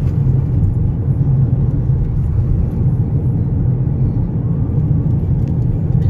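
Steady low road and engine rumble of a car driving along a highway, heard from inside the moving car.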